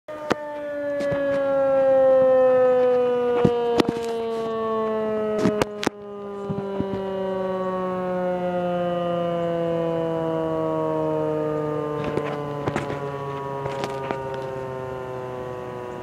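Outdoor warning sirens winding down at the end of an alert signal, the nearest an ASC T-128: a sustained tone sliding slowly and steadily lower in pitch. Several sharp clicks and knocks from the recording device being handled at the window cut across it.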